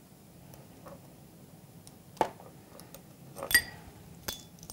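Measuring spoon scraping and clinking against a small spice jar as a teaspoon of spice is scooped out: a few light clinks, the clearest about two and three and a half seconds in.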